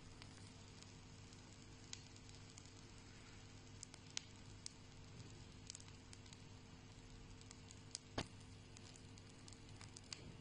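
Faint, sparse crackles and ticks from a round shisha charcoal briquette burning on a wire grate, the sharpest crack about eight seconds in, over a steady low hum.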